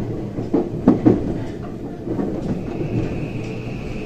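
Cabin running noise of a JR West 323 series electric train: a steady rumble with a few wheel clacks over rail joints about a second in. About two and a half seconds in, a high steady whine from its Mitsubishi full-SiC VVVF inverter sets in as the train begins braking for the next station.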